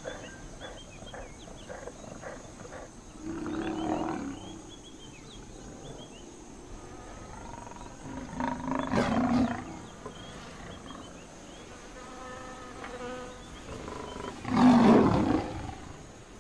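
A lion calling three times, each call about a second long and some five seconds apart, the last the loudest, over a steady background of insects and faint high chirps.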